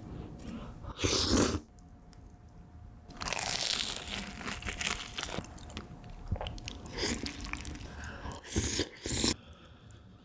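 Close-miked eating: rosé tteokbokki rice cakes in creamy sauce being bitten and chewed, with sticky sauce stirred as a corn dog is dipped into the bowl. There are louder bursts of eating noise about a second in, around three to four seconds in, and near the end.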